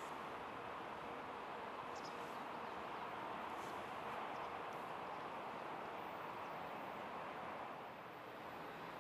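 Faint, steady outdoor rushing noise with a few brief high bird chirps; the distant train is not clearly heard.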